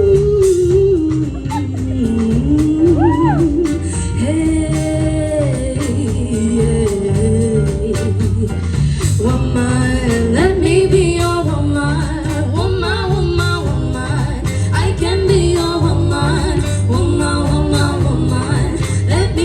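Live band playing a groove, with a singer's wordless melody sliding up and down over a steady, pulsing bass line and drums.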